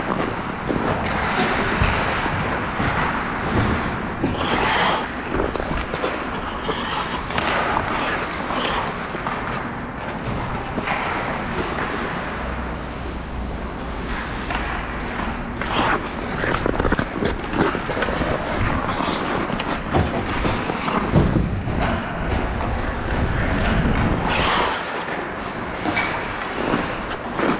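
Ice hockey play: skate blades scraping and carving on the ice continuously, with frequent sharp clacks from sticks and the puck.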